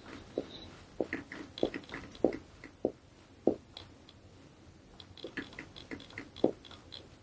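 Hands pressing and moving over a patient on a chiropractic treatment table: quiet, irregular soft clicks and rustles, with a short lull in the middle.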